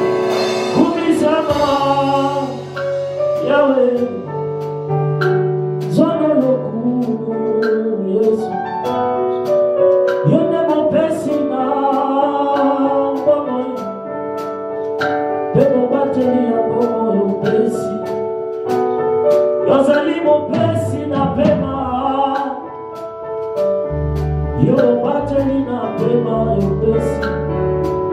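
Live gospel worship music: a sung melody over keyboard chords and light percussion, with bass notes coming in strongly near the end.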